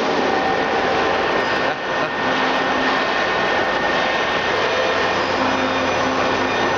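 Rice milling machine running: a loud, steady mechanical noise with a constant hum on top.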